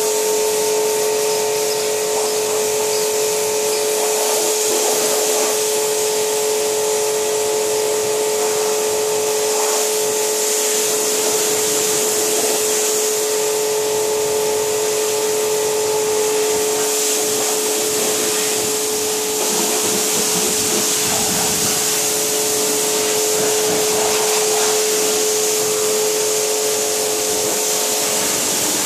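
Electric pressure washer running steadily: a constant motor-and-pump hum under the hiss of the high-pressure water jet spraying onto a car's body panels during a rinse.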